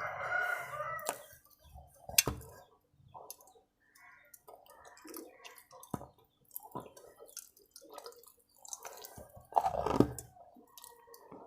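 Close-up chewing of wet chalk: scattered crisp crunches and mouth clicks, with a louder burst of chewing near the end.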